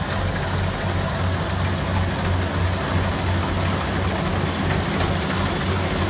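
Kubota rice combine harvester running steadily as it cuts the crop and moves forward, its diesel engine giving a low, pulsing drone over the noise of the cutting and threshing machinery.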